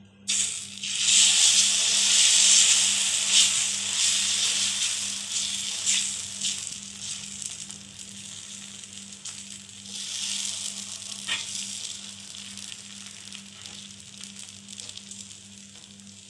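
Moong dal batter sizzling as it is poured onto a hot, oiled tava and spread in circles with a ladle. The sizzle starts sharply, is loudest for the first few seconds, then fades and swells once more briefly, with a few light ladle taps on the griddle.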